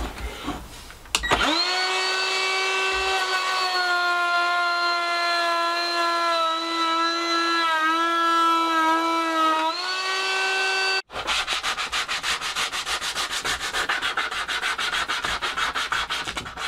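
Cordless Ryobi trim router starts about a second in and runs with a steady whine while cutting a round-over along a plywood edge, its pitch sagging briefly under load. It cuts off abruptly, giving way to quick rhythmic strokes of hand sanding on the plywood edge.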